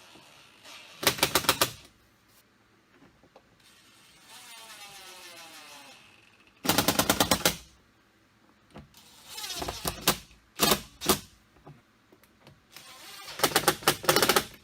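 Cordless power driver driving the door-panel screws: a motor whirring with falling and rising pitch, then three short bursts of rapid clicking as screws seat, about a second in, about seven seconds in and near the end.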